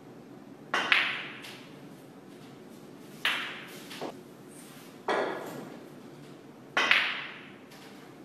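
Snooker balls clacking: the cue tip striking the cue ball and balls hitting one another. About six sharp clacks, some in quick pairs, each trailing off briefly.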